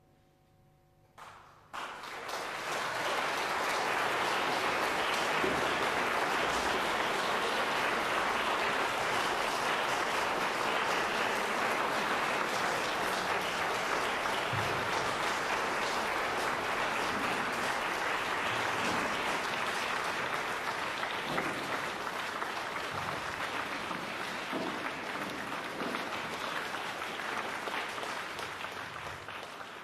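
Audience applauding in a large concert hall: the clapping breaks out about two seconds in, goes on steadily and dense, and starts to fade near the end.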